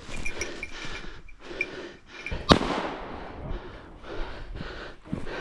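Crackling and rustling of brush as someone pushes through undergrowth, with one sharp crack about two and a half seconds in.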